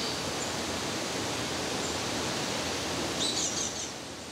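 Outdoor nature ambience: a steady rushing noise with a few short high bird chirps, and a brief bird call a little after three seconds in.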